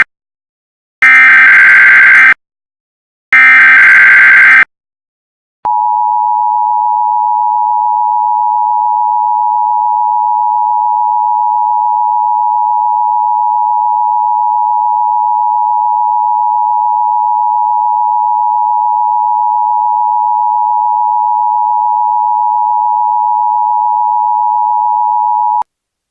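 Emergency Alert System signal: two harsh, buzzing bursts of SAME header data, each just over a second long with a second's gap between them, then the EAS two-tone attention signal, a steady dual tone held for about twenty seconds that cuts off abruptly near the end.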